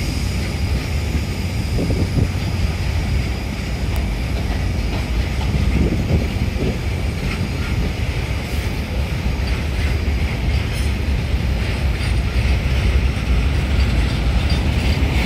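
Double-stack container freight wagons rolling past on the rails: a loud, steady rumble of wheels on track.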